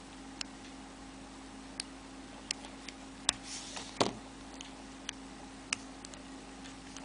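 Light, sharp clicks and taps, roughly one a second, from rubber bands and a hook being worked on the plastic pins of a Rainbow Loom Monster Tail. A brief rustle and a louder knock come about four seconds in.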